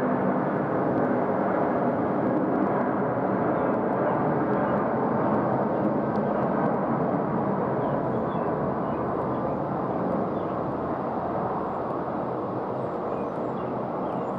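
Airbus A330-200's twin Pratt & Whitney PW4000 turbofans at takeoff thrust: a steady jet roar through the takeoff roll and lift-off, easing slightly in the last few seconds as the airliner climbs away.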